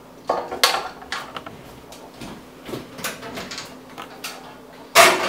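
Light knocks and clicks of things being handled in a kitchen, with a louder knock about five seconds in.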